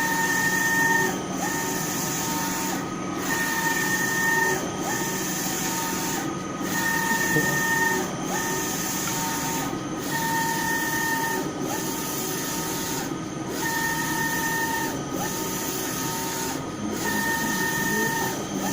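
Eyecolor JC-2000 UV inkjet printer running a print job. The print-head carriage sweeps back and forth with a motor whine during each pass and reverses about every 1.7 seconds.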